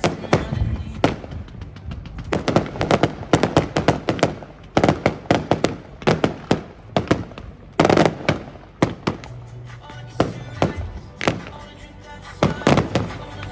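Fireworks display going off in rapid, irregular volleys of sharp bangs and crackling, with music playing underneath.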